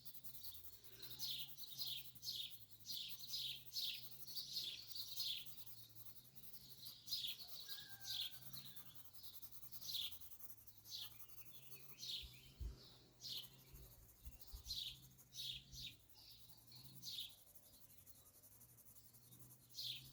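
Birds chirping: a run of short, falling chirps, about two a second at first, thinning out after the first few seconds.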